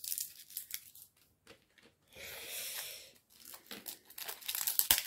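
Wrapping on a rolled diamond painting canvas being handled and picked open: scattered crinkles and crackles, with a longer rasp of the wrap tearing or rubbing about two seconds in.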